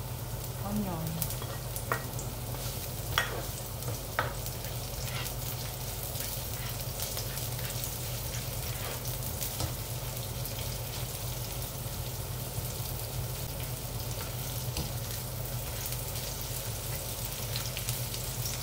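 Sliced onion, ginger and garlic sizzling steadily in hot oil in a nonstick wok while being stirred with a spoon, with a few sharp clicks of the spoon against the pan in the first few seconds.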